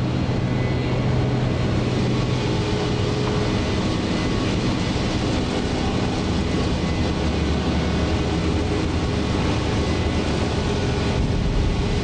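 Steady machinery drone and noise of a factory floor, with a low hum under it.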